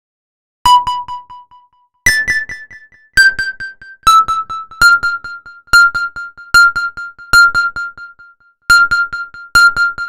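High-pitched single notes from an electric-piano-like software instrument in FL Studio Mobile, played one at a time on the on-screen keyboard, each fading out. First four different notes, then one note repeated about seven times, roughly once a second.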